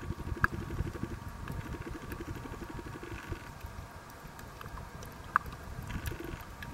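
Underwater sound picked up by a camera held just below the surface while snorkeling over a reef: an irregular low rumble of moving water with scattered faint ticks. Two short sharp pings stand out, one about half a second in and a louder one about five seconds in.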